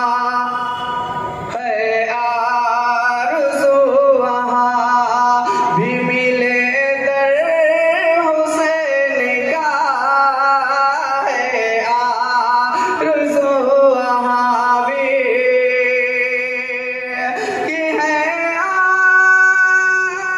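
A man singing a devotional recitation through a public-address system, with long wavering held notes over a steady sustained drone.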